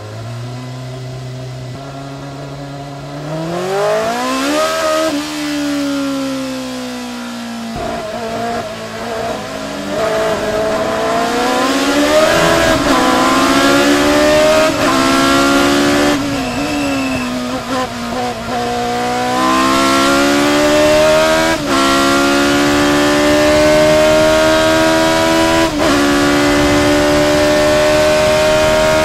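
Onboard sound of a 3-litre Cosworth DFV V8 in a 1981 Lotus 87B Formula 1 car. It runs steady at low revs for the first couple of seconds, then accelerates hard, climbing through the gears: a rising note cut by a sudden drop in pitch at each upshift, about every two to four seconds. Near the end it holds high revs.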